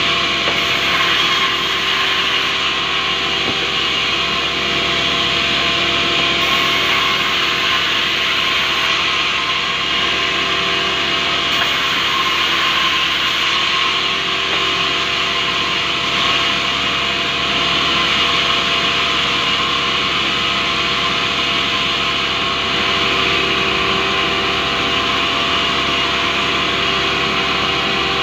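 Sawmill band saw running steadily and sawing through rubberwood, a continuous loud, high-pitched sawing noise.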